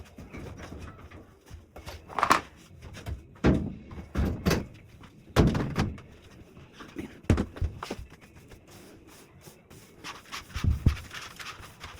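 Irregular knocks and thumps from a clothes dryer and its vent hose being handled and shifted back into place, about half a dozen louder bumps over low scraping.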